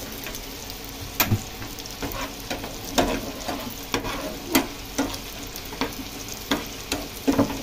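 Raisins sizzling lightly in hot oil in a non-stick frying pan while a metal spoon stirs them, scraping and tapping against the pan at irregular moments, a little more than once a second.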